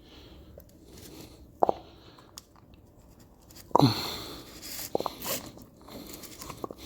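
A rubber CV joint boot being worked by hand onto a car's driveshaft: quiet rubbing and crunching with a few short squeaks and knocks, the loudest about four seconds in.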